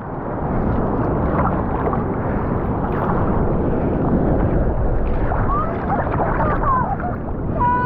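Seawater sloshing and splashing around a waterproof action camera held at the surface as a surfer paddles out, a steady wash of water noise.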